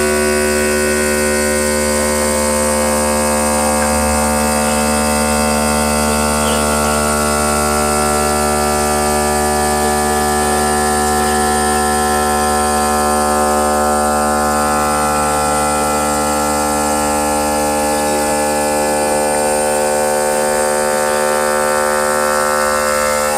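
A CNC stone machine's motor running with a loud, steady whine made of many tones at once. The whine holds unchanged, then cuts off suddenly.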